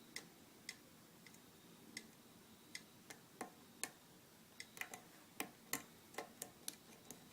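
Small, irregular metallic clicks of a hook pick probing the pins of a pin-tumbler lock held under tension during single-pin picking. The clicks are sparse at first and come more often in the second half.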